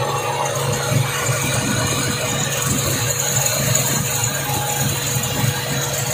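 Toyota 4K four-cylinder engine idling steadily with a fast light ticking, its ignition running on a motorcycle CDI unit in place of the old contact points.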